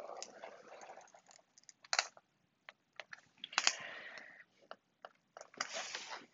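Ballpoint pen scratching across fabric along a clear acrylic ruler, in three short strokes, with a few sharp clicks and taps between them.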